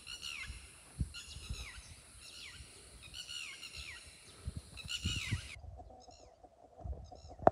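A wild animal calling over and over in sharp, high-pitched calls that fall in pitch, stopping about five and a half seconds in, with a few low thumps under them. They are alarm calls, which warn other animals that strangers have come to the waterhole.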